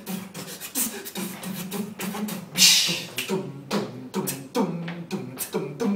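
A cappella vocal percussion: a beatboxer's rapid mouth clicks and snare-like hits, under a low sung bass line that steps between notes.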